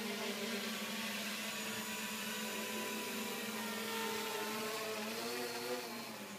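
Electric motors and propellers of a small radio-controlled quadcopter whirring steadily, their pitch wavering for a moment near the end as the throttle shifts.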